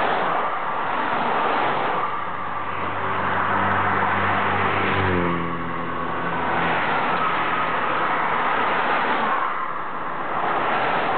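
Steady rush of highway traffic and wind that swells and fades every few seconds. About five seconds in, a vehicle engine passes close by and its pitch drops.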